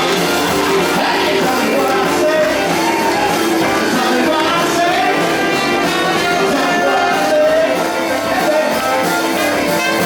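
Band playing 1950s-style rock and roll with a singer.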